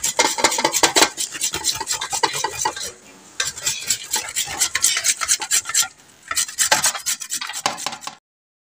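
Fresh carrots being grated on two flat metal hand graters over aluminium platters: fast, rough rasping strokes overlapping, with two short lulls, about three and six seconds in. The sound cuts off suddenly near the end.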